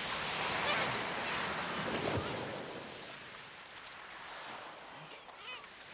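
Sea surf sound effect: a wave washing up on a shore, swelling over the first couple of seconds and slowly ebbing away. A few faint high bird cries come near the end.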